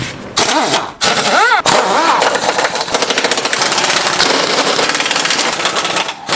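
Impact wrench undoing the steering rack's bolts. It spins up in a few short bursts with a rising-and-falling whine, then hammers steadily for about four seconds.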